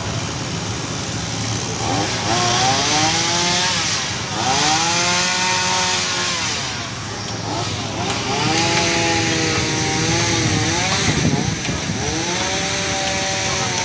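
Chainsaw revving up and cutting through the branches of a fallen tree in four runs of about two seconds each, the pitch rising under the throttle and dropping off between cuts, over a steady low idle.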